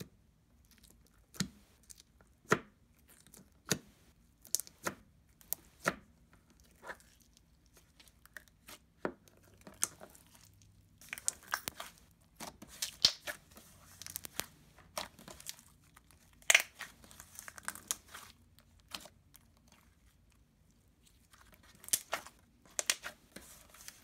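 Clear glue slime (Jello Kitty) being squished and stretched by hand, giving short, sharp bubble pops and crackles. The pops come sparsely at first, run closer together in the middle, stop for a couple of seconds near the end and then start again.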